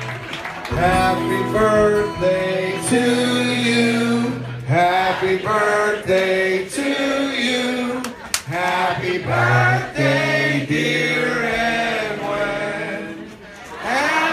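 Live singing with a band, several male voices singing together into microphones.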